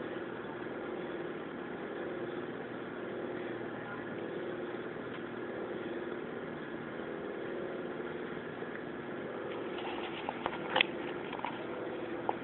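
A steady machine hum with several steady tones in it. A few short knocks come near the end, the loudest about eleven seconds in.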